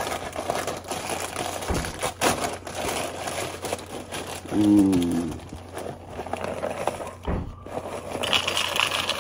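A cardboard cereal box and its inner bag being pulled open, with continuous crinkling and tearing. About halfway through comes a short low grunt, the loudest sound. Near the end a brighter rustle rises as the box is tipped toward the bowl.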